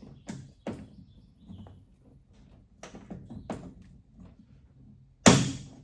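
Pop rivets being set with a hand rivet tool: several sharp clicks, then one much louder snap near the end as a rivet's mandrel breaks off.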